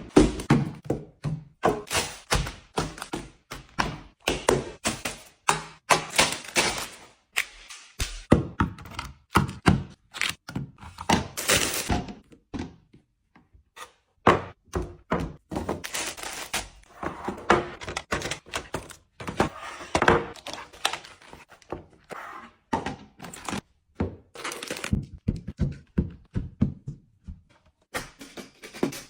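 Food containers, bottles and packages being set down and arranged on fridge shelves: an irregular run of thunks, taps and clicks, with a short pause about halfway through.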